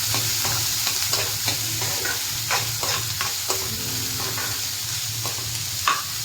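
Chopped onions sizzling in hot oil in a kadai as they are stirred, with short scrapes and taps of the stirring utensil against the pan every half second or so.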